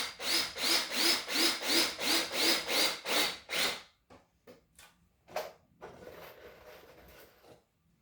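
Drill driver driving a screw into a wooden rail through a pilot hole, the trigger feathered in short pulses about three times a second, each pulse rising in pitch as the motor spins up, for nearly four seconds. A few light clicks and a brief faint rustle follow.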